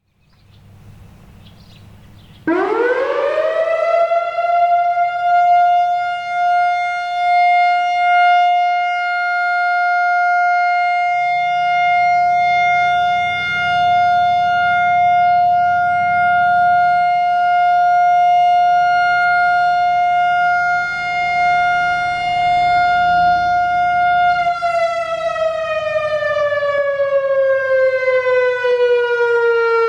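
Whelen WPS-4004 electronic outdoor warning siren sounding a steady alert tone in its weekly test. It starts about two and a half seconds in and rises quickly to one steady pitch, which it holds for about twenty seconds, very loud and swelling slightly as it rotates. Near the end the pitch begins a falling wind-down.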